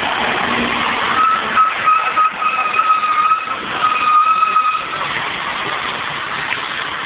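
Rear-loading garbage truck at work, its compactor giving a steady high whine for about four seconds from a second in, over a steady noise of traffic and street.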